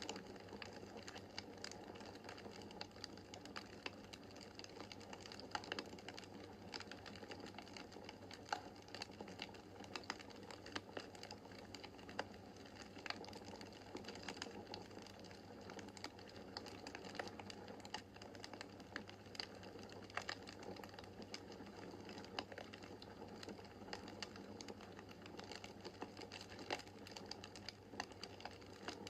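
Wood fire crackling in a fireplace: many irregular sharp pops and snaps over a steady low hum.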